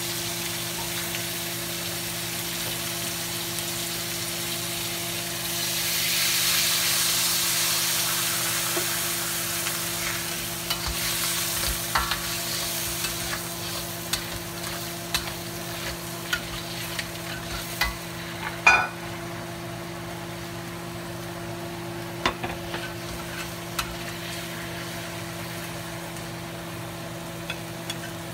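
Blue crabs and sauce sizzling in a wok. The sizzle swells for a few seconds early on, then a metal spatula clinks and scrapes against the wok as the crabs are turned, with one loud clank a little past the middle. A steady low hum runs underneath.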